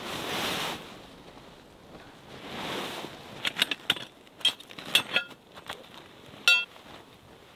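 Metal tent stakes clinking against each other and against the hatchet head: several light metallic clinks from about three and a half seconds in, then one louder ringing clank near the end. Two brief rustles come before the clinks.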